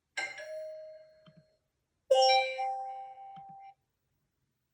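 Two doorbell chime sound effects previewed one after another. The first starts right away and rings out over about a second. The second comes about two seconds in as a two-note chime, lower then higher, ringing for about a second and a half.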